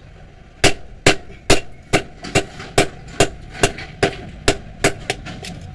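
Hand hammer striking a red-hot knife blade on a small steel stake anvil: a steady run of about a dozen ringing metal blows, a little over two a second, starting about half a second in, as the blade is forged.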